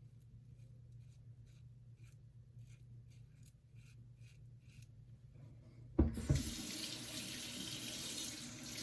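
Faint short scratching strokes of a King C. Gillette double-edge safety razor on lathered stubble. About six seconds in, a faucet is turned on and water runs steadily into the sink.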